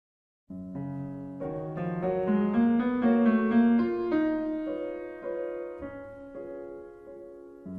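Background piano music: a gentle piece of struck notes and chords that ring and fade, starting about half a second in.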